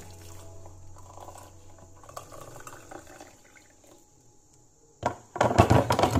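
Water poured from an electric kettle into a ceramic mug over a tea bag. Faint for the first few seconds, with a loud, clattery stretch near the end as the kettle goes back down.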